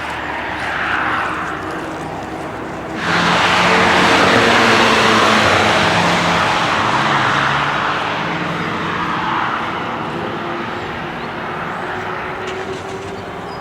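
A car passing at speed, its engine suddenly loud about three seconds in and then fading slowly as it drives away.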